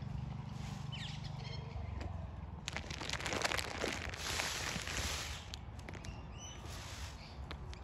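Outdoor ambience with a low steady hum and a few faint small-bird chirps, broken by a burst of rapid rustling clicks about three seconds in that lasts a second or two.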